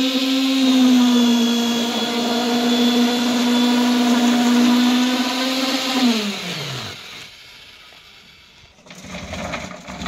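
Electric concrete needle vibrator running with a steady, loud hum and whine as it compacts freshly poured concrete in a column form. About six seconds in it is switched off and the pitch falls as the motor spins down; near the end come a few soft knocks and rustling.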